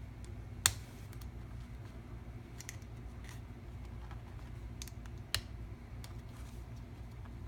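Small screwdriver clicking against the washer collars on a guitar pedal's potentiometers as they are worked loose, with two sharp metal clicks, one about a second in and one about five seconds in, and fainter ticks between, over a steady low hum.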